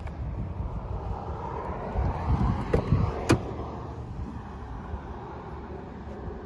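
Driver's door of a 2001 BMW 540i being opened: two sharp clicks of the handle and latch about three seconds in, with a few dull thumps just before, over a steady low rumble.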